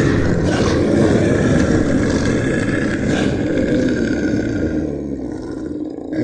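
A tiger's long, deep roar that eases off slightly near the end.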